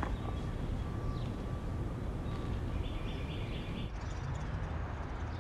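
Outdoor ambience: a steady low rumble, with a bird chirping a quick run of short notes about three seconds in. The background changes and turns duller about four seconds in.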